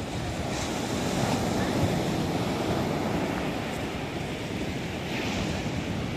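Sea surf breaking and washing up on a sandy beach, with wind buffeting the microphone. The hiss of the wash swells about half a second in and again around five seconds in.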